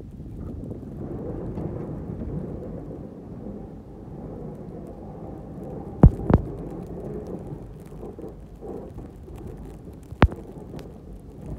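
Pickup truck with a front snowplow driving and pushing snow: a steady low rumble, broken by three sharp knocks, two close together about six seconds in and one about ten seconds in.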